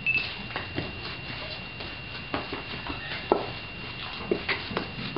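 Wooden kine mallet pressing and mashing steamed rice in a stone usu mortar for mochi, with irregular dull knocks and thuds, the loudest about three seconds in.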